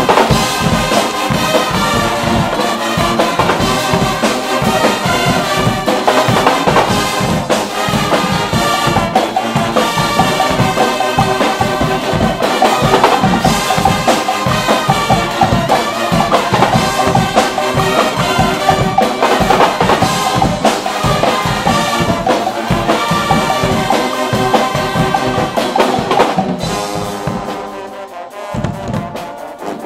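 Guggenmusik brass band playing loud and rhythmic: massed trumpets and trombones over a drum kit with cymbals. The music drops off near the end.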